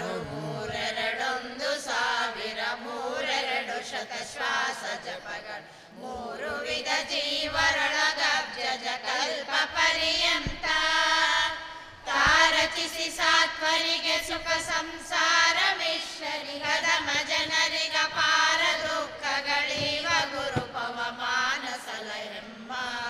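Devotional chanting in Kannada: a prayer sung to a slow melody, in long phrases with short breaks between them.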